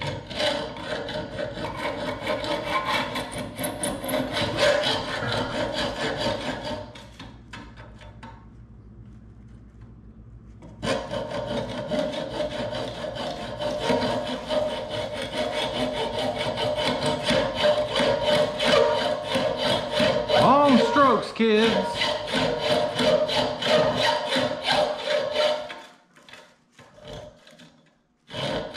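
Hand hacksaw sawing back and forth with steady rasping strokes. The strokes pause for a few seconds about seven seconds in, resume, and stop again near the end.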